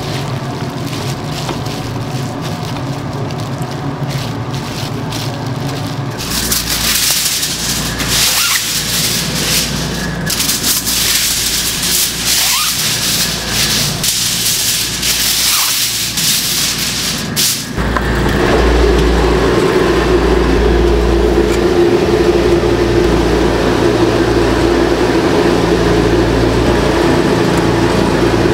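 Commercial kitchen noise under a steady hum. In the middle stretch, sheets of aluminium foil are spread out with a hissy crinkling and many small crackles. A louder, deeper steady hum takes over for the last ten seconds or so.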